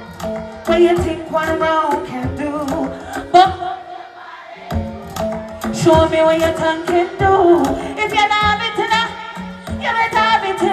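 Dancehall music played loud over a stage sound system, with a singing voice over the beat. The bass and beat cut out for a moment about four seconds in, then come back.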